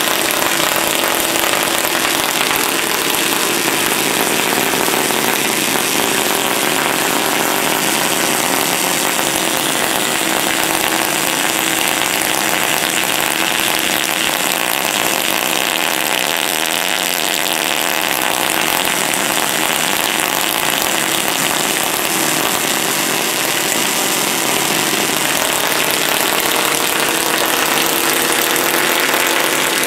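High-voltage spark arcs from a homemade 20-stage Cockcroft-Walton multiplier fed by a ZVS flyback driver, crackling and buzzing loudly and without a break. The sparks jump from its aluminium toroid to a second toroid and to a hand-held metal probe.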